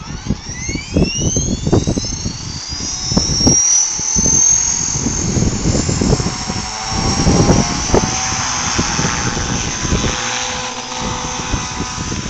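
Align T-Rex 450 Sport electric RC helicopter spooling up: a high-pitched whine rises over the first two to three seconds, then holds steady. Heavy wind buffets the microphone throughout.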